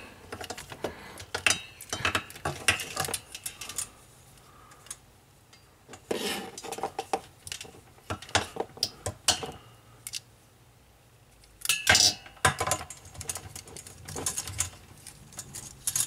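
Computer cables and their plugs being handled, rustling and knocking with scattered clicks and clatters against each other and the metal desk frame, with a couple of quieter pauses.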